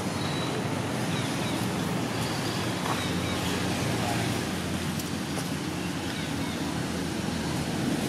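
Steady outdoor background noise, an even rumble and hiss with no distinct events.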